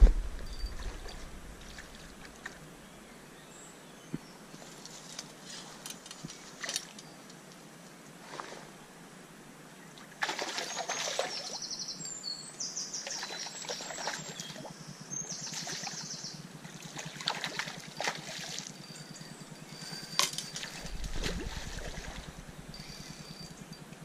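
River water trickling, with a few short bird calls. From about ten seconds in, a fixed-spool fishing reel is wound, its gears giving a fast ticking rattle that is loudest for the first few seconds.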